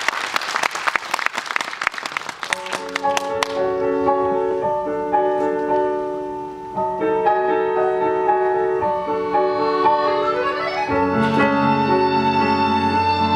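Audience applauding for about three seconds, dying away as a slow piano-and-strings introduction begins. A rising slide near the end leads into a fuller passage with a bass line.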